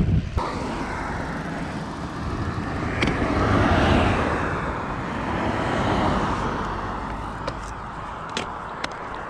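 A car (an SUV) driving past on the road: its tyre and engine noise swells to a peak about four seconds in, then fades away. A few short clicks near the end.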